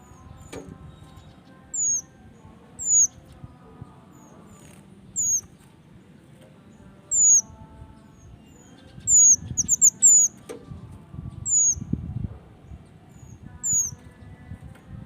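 Male minivet (mantenan) calling: thin, very high-pitched, down-slurred single notes, one every second or two. About two-thirds through it gives a quick run of four.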